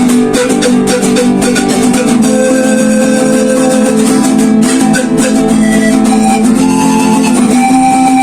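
Live instrumental music played on a plucked guitar, with held notes and steady strokes throughout.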